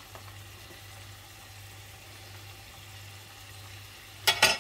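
Lardons and sliced onions sizzling quietly in a nonstick frying pan, over a low steady hum. Near the end, a short loud metallic clatter as a metal teaspoon is set down on the stovetop grill plate.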